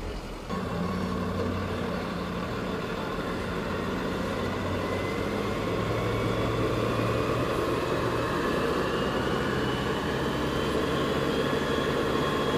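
Large truck engine running, stepping up about half a second in, with a whine in it that slowly rises in pitch.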